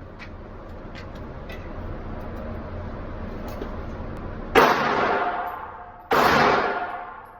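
Two gunshots about a second and a half apart, each sharp and loud, then dying away slowly with a ringing tone, over a low steady rumble.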